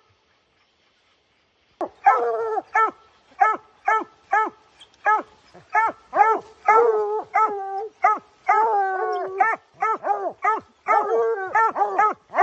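Bear hounds barking treed: a steady chop of short barks, about two a second, with a few longer drawn-out bawls, starting about two seconds in. This treed bark is the sign that the bear is up the tree.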